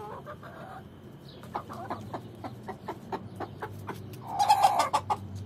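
Chickens clucking in short, repeated calls, with one loud, harsh squawk lasting under a second about four seconds in.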